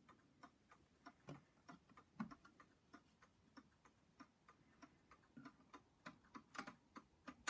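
Garrard 14-day striking mantel clock ticking steadily, about three ticks a second, with a few louder knocks and clicks from its bezel being opened and its minute hand being turned by hand, and a sharp click near the end.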